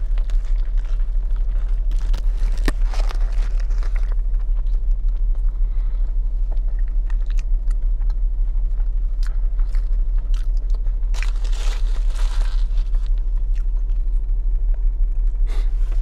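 Close-miked biting and chewing of a barbecue burger, with its foil and paper wrapper crinkling early on and again about two-thirds of the way through. A steady low hum runs underneath and is the loudest sound.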